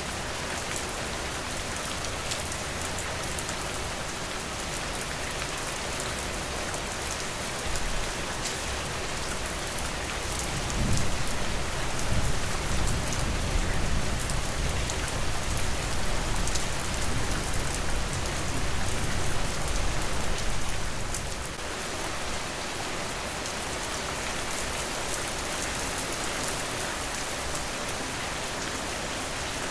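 Steady rain falling on a porch and the surrounding forest, an even hiss of many drops. From about ten seconds in, a low rumble swells under the rain and dies away a little after twenty seconds.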